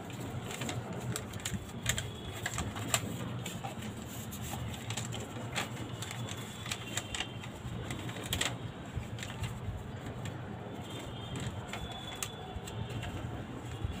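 Origami paper crackling and creasing under the fingers as it is folded and pressed flat: many short, irregular clicks and crinkles over a steady low hum.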